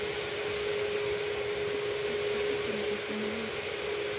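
Steady hum with one constant tone over an even hiss: a machine-like room background noise such as ventilation.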